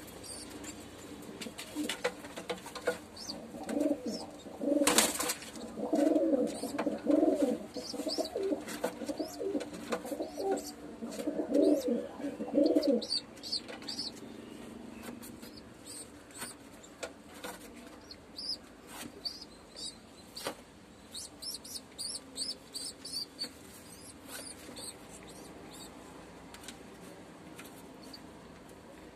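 Homing pigeon feeding its squab. For the first half there are pulses of low, throaty coo-like pigeon sounds. For the second half there is a run of short, high, thin squeaks, the begging peeps of a squab being fed. Scattered scuffs and flutters against the cardboard box are heard throughout, with one sharp knock about five seconds in.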